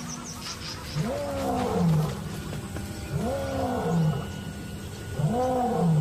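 Male lion roaring: three deep calls about two seconds apart, each rising and then falling in pitch. It is a territorial roar from the pride's resident male, a plain message that he holds this ground.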